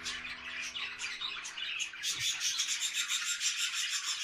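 Small pet parrots chirping, then a fast, raspy scratching run of high pulses from about halfway in, as the male bird feeds the female.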